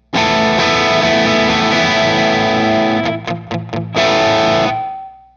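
Electric guitar played through a transparent-style overdrive pedal into an amp: a held, lightly driven chord, three or four quick short strums about three seconds in, then another chord that fades away with one note ringing on. The pedal adds only a slight rough edge to the amp's own tone.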